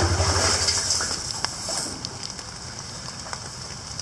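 A 500 lb magnet on a rope going down a narrow concrete-lined well: a loud low pulsing rumble for about the first second, then a few sharp knocks as it descends.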